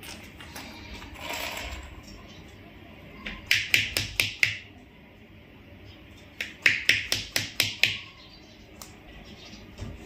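Indian ringneck parakeet giving two quick runs of shrill, clipped calls, the first about three seconds in and the second a few seconds later.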